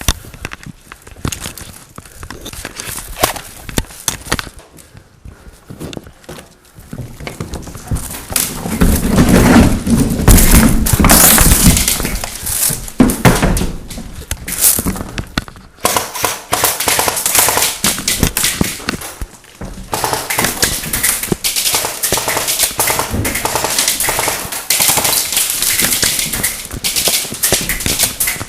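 Airsoft guns firing: rapid clicks and short bursts of shots. From about a third of the way in, loud rustling noise rubs on the head-mounted microphone.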